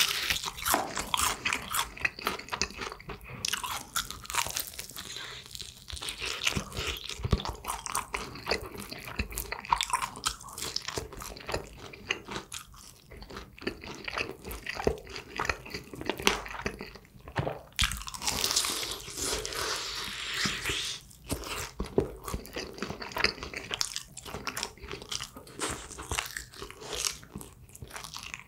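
Biting and crunching into crisp honey-glazed Kyochon Honey Combo fried chicken, with chewing. Many sharp, irregular crunches, and a longer run of crunching about two-thirds of the way through.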